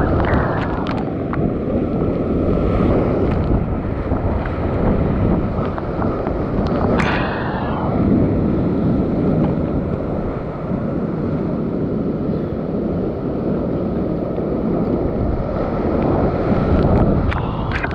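Steep whitewater rapids rushing loudly around a kayak in the current, with water spray buffeting the action camera's microphone. Sharper splashes hit about seven seconds in and again near the end.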